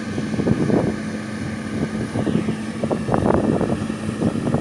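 A vehicle engine running with a steady hum, while wind buffets the microphone in rough gusts.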